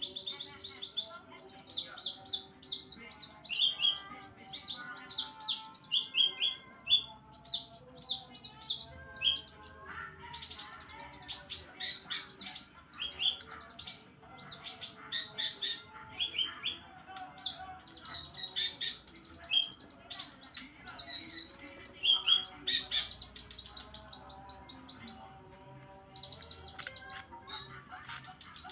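Caged sunbird (kolibri ninja) singing a fast, continuous run of high chirps and short trills. Its song is filled mostly with phrases learned from the hanging parrot (srindit).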